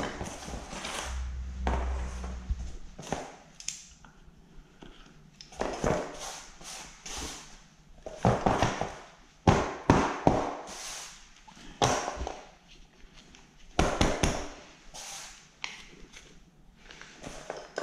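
Irregular knocks and scrapes as the plastic sprocket cover and small parts of an engine chainsaw are handled, set down on cardboard and scraped free of packed sawdust and dirt. A low rumble sounds in the first few seconds.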